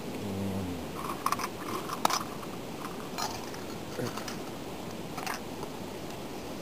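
Steady rushing of river water, with a handful of sharp clicks and crackles over it, the loudest about two seconds in.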